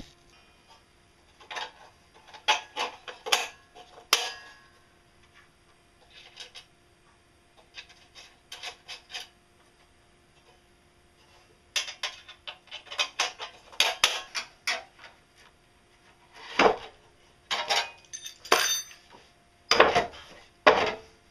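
Steel parts of a homemade differential, a shaft carrying sprockets, clinking and clanking against a steel frame as they are handled and fitted by hand. The knocks come in irregular clusters with short pauses between them.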